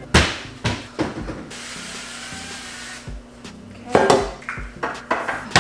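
Aerosol cooking spray hissing steadily for about a second and a half while greasing a loaf pan. Clicks and knocks of the can and pan being handled come before and after it.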